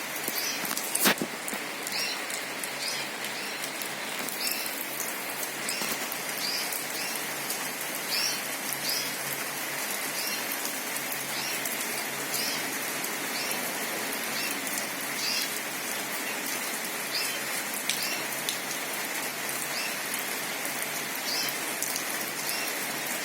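Steady rain falling, with a small bird's short chirps repeating about once or twice a second. A single sharp knock about a second in.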